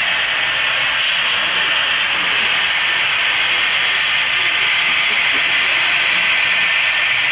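Steady hiss of a long HO scale model freight train rolling along its track, with a thin, steady high tone running through it.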